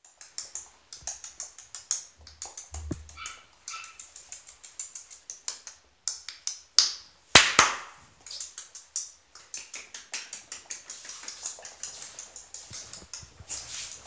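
Pomeranian puppy's claws clicking on a parquet floor as it scampers about: a quick, irregular run of sharp ticks, with a few louder knocks about seven seconds in.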